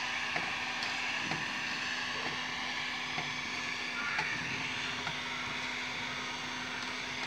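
Electric heat gun running steadily, its fan blowing hot air onto a PVC drainage fitting: an even hiss with a steady low hum under it.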